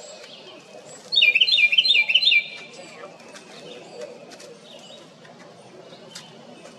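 Wren singing a loud, short burst of rapidly repeated high notes about a second in, lasting just over a second, then only faint chirps until a second burst begins at the very end.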